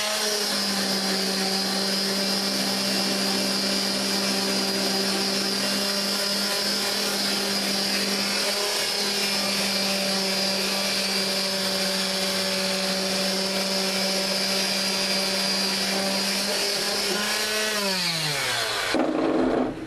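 Electric mouse detail sander with 220-grit paper running steadily against a carbon-steel knife blade, a steady motor whine over a sanding hiss. The motor winds down with a falling pitch near the end.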